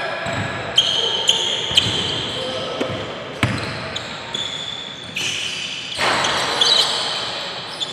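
Indoor basketball game on a hardwood court: sneakers squeaking several times, and the ball bouncing and knocking, all echoing in the gym hall. About six seconds in there is a louder noisy stretch as a shot goes up at the hoop.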